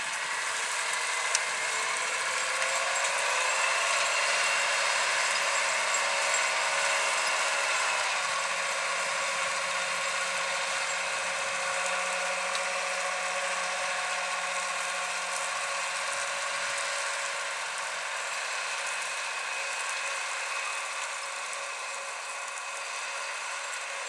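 John Deere 7310R tractor's six-cylinder diesel engine and drivetrain running under load while pulling a plough, a steady mechanical whine over the engine note. The whine rises in pitch over the first few seconds, drops about eight seconds in, then holds steady as the sound slowly fades.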